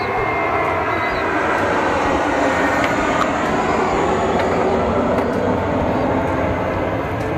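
Aircraft passing overhead: a steady noise that grows a little louder over the first few seconds and eases off near the end.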